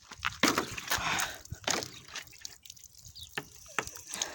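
Water dripping and splashing irregularly from a knife-punctured plastic water jug.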